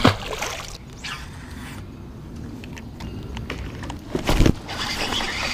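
A largemouth bass hitting the lake water with a splash as it is tossed back. About four seconds later there is a thump.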